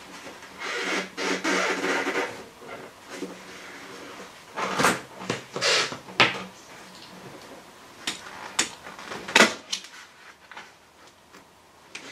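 Gloved hands working a Talbot Express windscreen out of its rubber seal. About a second in there is a grainy scraping and creaking that lasts about a second and a half, then a handful of short, sharp knocks and cracks.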